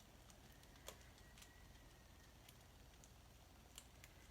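Near silence: room tone with a few faint clicks, the clearest about a second in.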